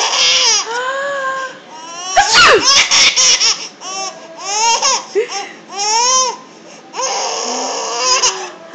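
Baby laughing in a string of short, high squealing bursts that rise and fall in pitch, with breathy, noisy stretches at the start and again about seven seconds in.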